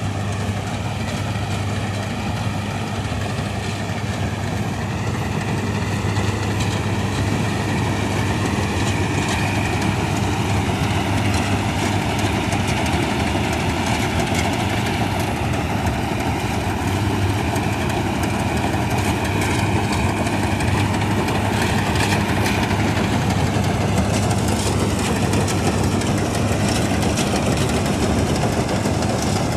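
1965 Ködel & Böhm Köla Combi combine harvester running steadily while harvesting, its engine hum under the dense clatter and hiss of the working machinery, a little louder after about six seconds.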